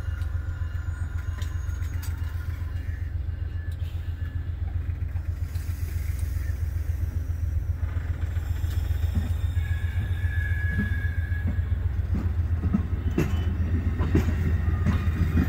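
Amtrak passenger coaches rolling past at trackside: a steady low rumble, with sharp wheel clicks and clunks coming more often in the second half.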